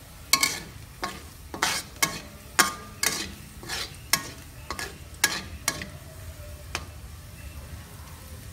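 Metal spatula scraping and clanking against a thin aluminium wok while stirring minced garlic as it fries: a quick run of sharp ringing strikes, about two a second, stopping about seven seconds in.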